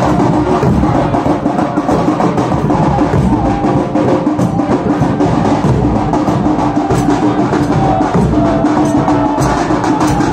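Live drumming in a fast, dense beat, with a held tone and a wavering melody line playing over the drums.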